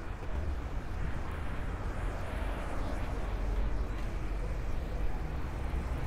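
City street ambience: a steady low rumble of traffic with general street noise, no single sound standing out.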